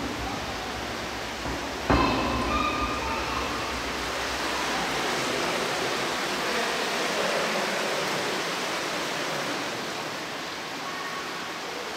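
Steady rushing of flowing water, as of the Angitis river through the cave, with a sudden knock about two seconds in.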